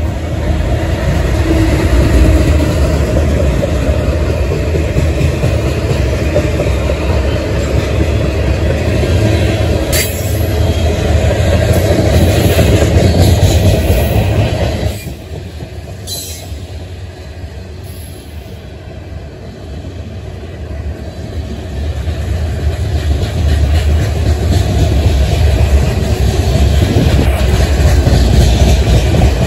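Norfolk Southern freight train rolling past close by: the trailing diesel locomotive goes past first, then covered hopper cars, their wheels clattering over the rails with a few sharp clicks. The noise drops suddenly about halfway through and builds back up near the end.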